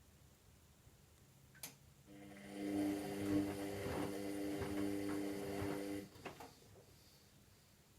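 A click, then a washing machine's drum motor hums and turns the drum for about four seconds, with the laundry tumbling and swishing, before it stops with a couple of clicks. This is one of the drum's stop-start turns during the wash phase of a synthetics cycle.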